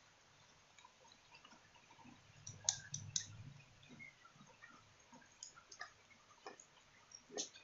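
Faint, scattered handling clicks and taps, with a few sharper clicks close together about three seconds in and another near the end.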